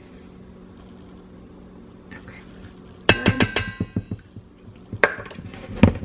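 Kitchenware clinking and tapping. About three seconds in comes a quick run of clinks with a brief ringing tone, and a few more knocks follow near the end.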